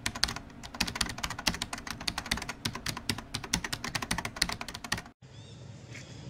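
Computer-keyboard typing sound effect: rapid, uneven key clicks, several a second, that cut off suddenly about five seconds in, giving way to faint outdoor ambience.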